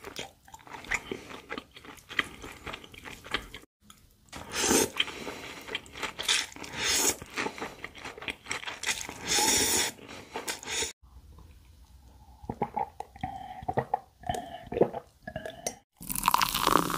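Close-miked eating of spicy whelk and cucumber noodle salad: wet chewing and crunching, with several loud slurps of thin wheat noodles in the middle. The sound comes in short edited clips that cut off abruptly a few times.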